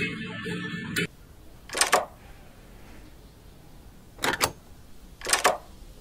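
A metal lever handle on an aluminium-framed glass door being worked, its latch giving a sharp double click three times. Before that, about the first second is folk music on banjo and acoustic guitar, which cuts off suddenly.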